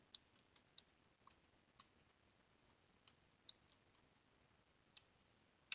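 Faint computer keyboard keystrokes: about a dozen short, irregularly spaced clicks of a command being typed.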